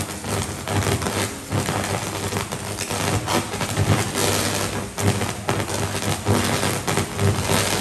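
Electrical fault arc at a pole-mounted distribution transformer's insulators and bushings: a steady low mains buzz under continuous sizzling crackle, broken by irregular sharp cracks as the arc flares and throws sparks.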